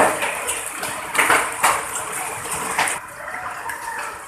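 Water running and splashing, with several sharper, louder splashes in the first three seconds before it settles quieter.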